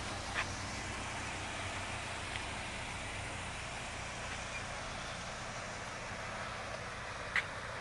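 Steady outdoor background noise with a faint low hum, broken by two small clicks, one about half a second in and one near the end.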